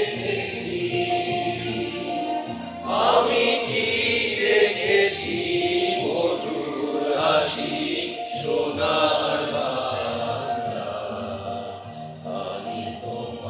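A large group of voices singing together in unison, with held, wavering notes.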